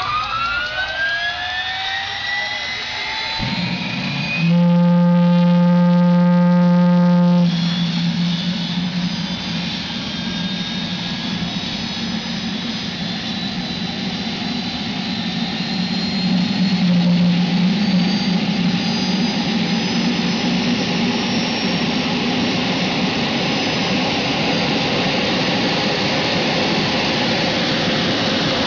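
Aircraft turbine engine on a motorcycle spooling up with rising whines, then running with a steady rush and a high whine that slowly climbs. About four seconds in, a loud steady tone cuts in and stops abruptly three seconds later.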